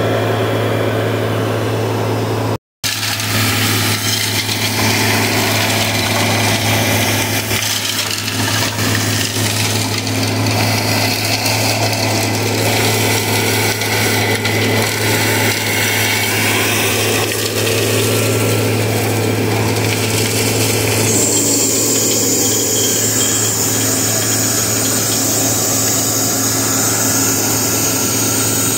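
Vacuum excavation truck running steadily, its engine and blower droning while air and soil rush up the suction tube lowered into the trench. A high whine joins in about two-thirds of the way through.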